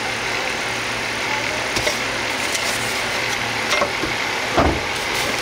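Steady idling engine hum with a few sharp knocks over it, the loudest a dull thump near the end.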